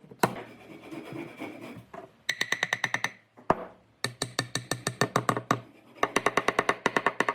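Tool work on wood: about two seconds of scraping, then three runs of rapid, evenly spaced clicks, about ten a second.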